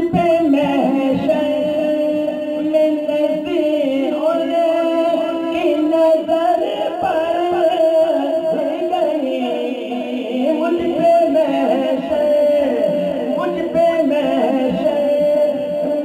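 Islamic vocal background music: a voice singing a slow melodic line with long held notes that waver and glide.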